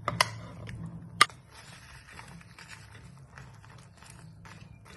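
Cooking at a pan of boiling water with tomatoes and dried chilies: two sharp knocks about a second apart, the second louder, then a faint crackly patter over a steady low hum.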